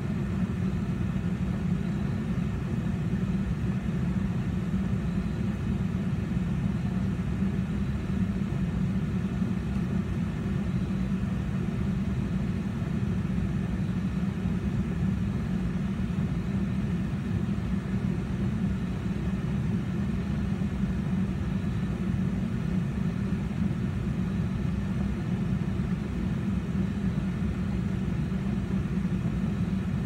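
Gas pack heating unit running steadily on second-stage heat: a constant low hum and rumble from its inducer fan and gas burners.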